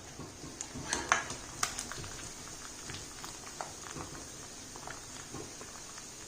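Chicken pakoda pieces frying in hot oil with a soft crackling sizzle, broken by a few light clicks and knocks as the pieces are lifted out, the clearest about a second in.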